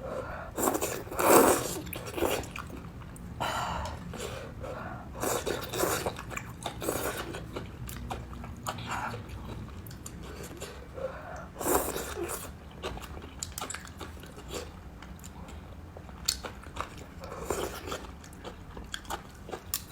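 Close-up eating sounds of a person working through a bowl of crossing-the-bridge rice noodles in soup: irregular bursts of chewing and mouth noise every second or two, the loudest about a second in and again around the middle.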